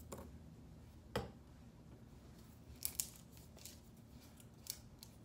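Faint clicks and knocks of small plastic paint bottles and their caps handled on a hard tabletop: one louder knock about a second in, then a few sharp clicks around the middle and near the end.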